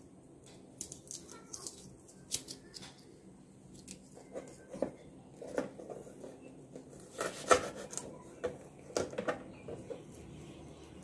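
Kitchen knife slicing okra lengthwise on a plastic chopping board: scattered, irregular clicks and taps of the blade cutting through the pods and meeting the board, busiest and sharpest a little past the middle.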